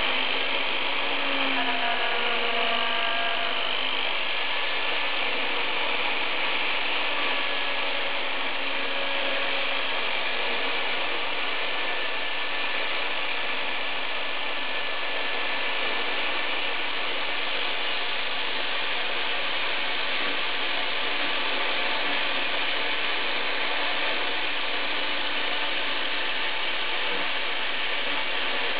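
Homemade CNC router's spindle running steadily as its small bit mills a clear plastic workpiece: a continuous mechanical whir and hiss, with a few shifting tones in the first few seconds.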